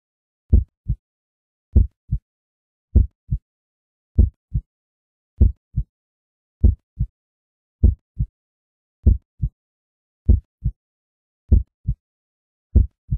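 Heartbeat sound effect: slow, steady double thumps (lub-dub), a stronger beat followed quickly by a softer one, repeating about every 1.2 seconds with silence in between.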